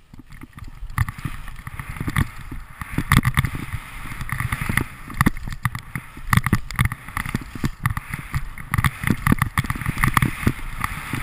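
Skis hissing and scraping through chopped-up snow at speed, with irregular crunches as they hit the bumps of old tracks, over a steady low rumble of wind on the microphone.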